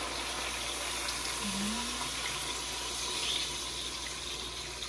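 Water being poured into a pot of browned chicken legs: a steady pour that eases off slightly toward the end.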